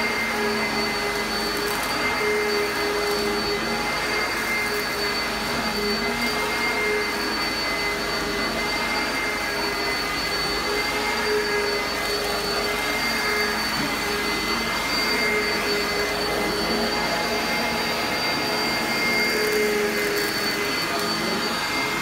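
Oreck XL upright vacuum cleaner running steadily while it is pushed over carpet: a constant motor whine with a steady high tone over the rush of suction.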